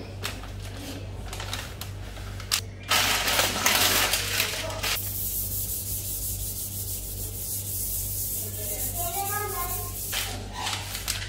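A plastic fondant smoother rubbing and scraping over a fondant-covered cake in stretches of strokes, loudest in the first five seconds, over a steady low hum.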